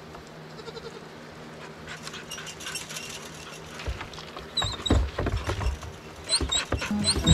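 Goats' hooves knocking and clattering on a wooden plank as the goats jostle and climb for feed, with scattered thumps getting busier in the second half.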